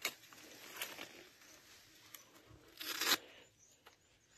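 Dry grass and brush rustling and crunching as they are pushed aside and handled, in a few short bursts, the loudest about three seconds in.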